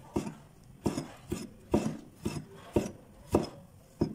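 Chef's knife slicing tomato into strips on a wooden cutting board, the blade knocking on the board about twice a second with a light scrape between cuts.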